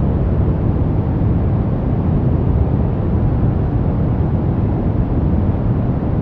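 Continuous, unchanging white-noise track for relaxation: a deep, even rushing hiss, strongest in the low end, with no changes or events.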